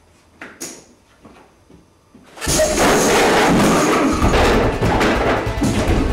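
A few light clicks of cards and poker chips. Then, about two and a half seconds in, a loud, dense film soundtrack of music and crashing effects breaks in suddenly and keeps going.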